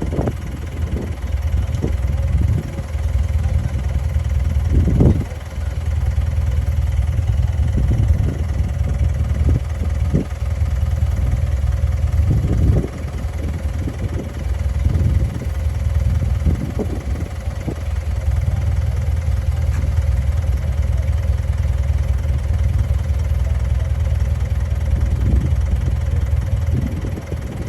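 Bulldozer diesel engine running steadily with a deep rumble, with irregular short knocks and clanks every second or two.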